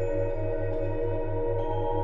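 Ambient sound-healing drone of steady held tones with a singing-bowl-like ring. Under it, a low 100 Hz tone pulses about four and a half times a second, the 4.5 Hz theta beat. Faint new bell-like overtones come in twice.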